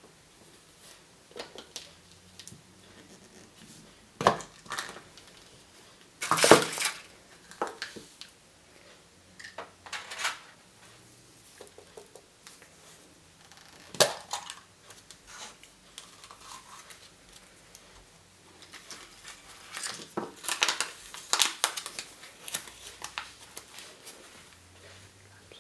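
Candy and surprise-egg packaging being handled: wrappers crinkling and tearing, with scattered clicks and snaps. The loudest crackle comes about six and a half seconds in, and a busier run of crinkling comes near the end.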